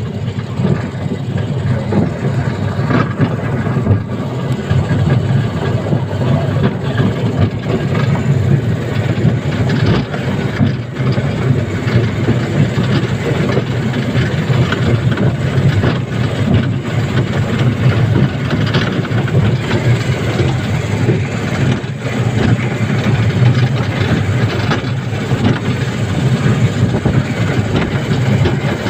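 Elevated sky train running along its track, a steady low rumble with frequent small clicks and creaks throughout.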